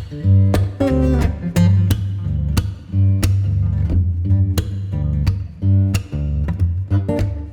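Background music: strummed guitar over a bass line with a steady beat.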